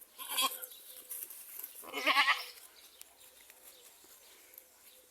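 Goat bleating twice, two short quavering calls, the second louder.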